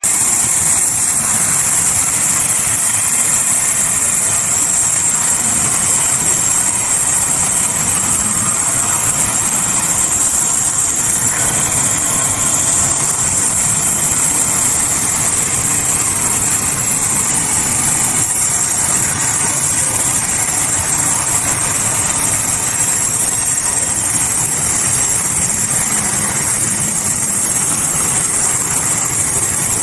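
Sawmill machinery running steadily, an engine-like drone with a bright hiss over it, with no break or change in level.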